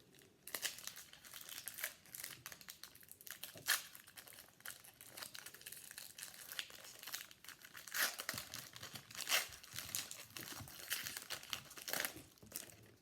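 Crinkling and tearing of a trading-card pack's foil wrapper as it is torn open and handled, a dense run of sharp crackles that stops just before the end.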